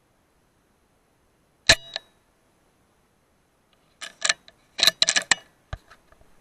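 Sharp clicks and knocks: a pair about a second and a half in, then a quick cluster of clicks a few seconds later.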